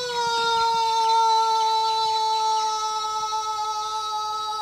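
A soldier's drawn-out parade-ground word of command: one long shouted note that settles slightly in pitch as it begins and is then held steady.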